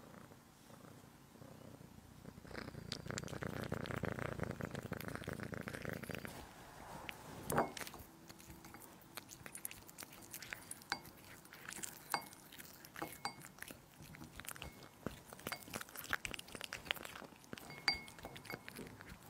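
Cat purring for a few seconds, then eating a chicken roll stuffed with horse meat: a run of wet bites, chewing clicks and licks.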